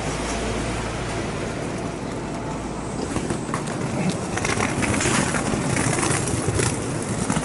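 Electric train running: a steady rumble inside the carriage, then from about three seconds in a louder clatter of wheels on rail joints as a red Kintetsu train moves past close by at a platform.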